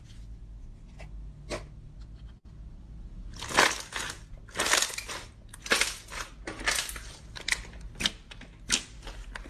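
Hands squeezing and pressing gold glitter slime. From about a third of the way in, a short squishing burst comes roughly once a second.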